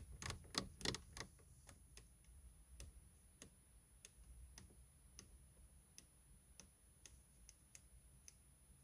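Faint detent clicks of a Saab 9-3's menu control wheel being turned, each click sharp and separate. They come quickly at first, then slow to about two a second. The wheel is clicking again after WD-40 was sprayed on its contact.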